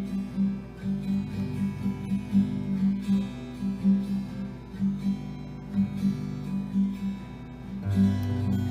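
Background music played on acoustic guitar, a steady run of short plucked notes, with lower notes coming in near the end.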